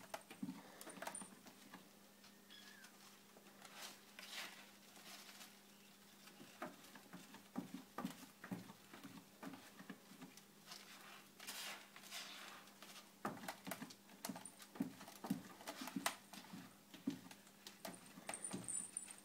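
Kittens play-fighting in a fabric-lined cat bed: faint, irregular rustling of the blanket, scratching and soft taps of paws. The taps come thicker from about two-thirds of the way in.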